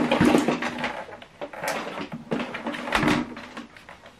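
Handling noise from a Samsung soundbar being turned over and set down on a tabletop: a run of scrapes and knocks at the start, then single knocks about one and a half and three seconds in.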